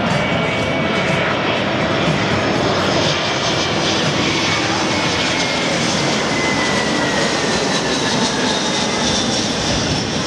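Twin-engine jet airliner on final approach flying low overhead with gear down: a steady jet noise with a high whine that slowly falls in pitch as it passes.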